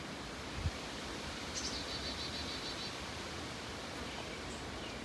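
Steady outdoor noise with a short, high bird trill of several quick repeated notes about a second and a half in, and a brief low thump near the start.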